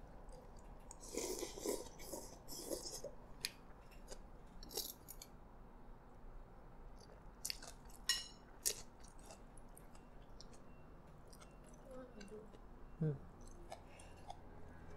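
A person eating noodle soup with chopsticks and a porcelain spoon: a short slurp about a second in, quiet chewing, and several sharp clicks of the utensils against the bowl and spoon around the middle.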